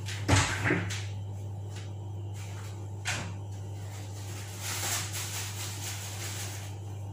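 A quick clatter of knocks about half a second in and a single knock around three seconds, like a cupboard or drawer being handled, over a steady low hum; a brief rustle near five seconds.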